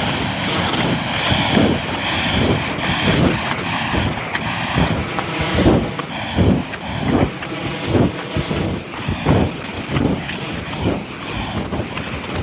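Waterfall pouring steadily, with wind buffeting the microphone in irregular gusts.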